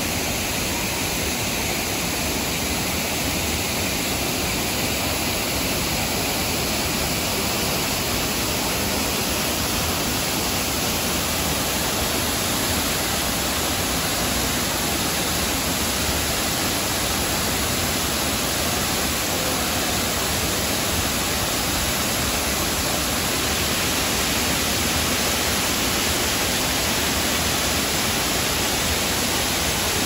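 Tall waterfall pouring down a rock face into a pool: a loud, steady rushing of falling and splashing water.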